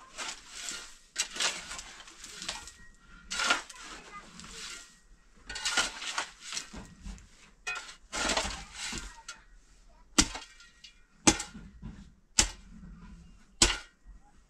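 Irregular noisy rustling or scraping bursts, then sharp knocks about once a second over the last few seconds.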